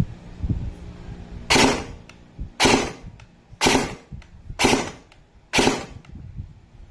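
Airsoft gun fired five single shots, about one a second. Each shot sounds doubled though only one BB comes out, which the owner puts down to the gearbox's missing delayer.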